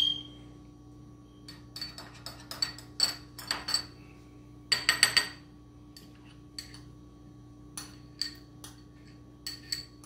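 A spoon clinking and scraping against a small glass bowl as garlic butter is stirred into a sauce: irregular taps, with a quick run of ringing clinks about five seconds in.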